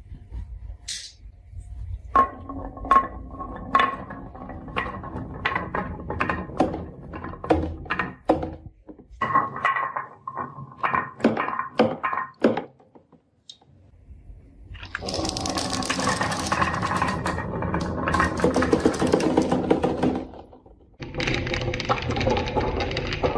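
Marbles clicking and clacking along a marble run, many quick knocks with a short ring. From about fifteen seconds in, a dense continuous rattle of many marbles rolling together, breaking off briefly near twenty seconds and starting again.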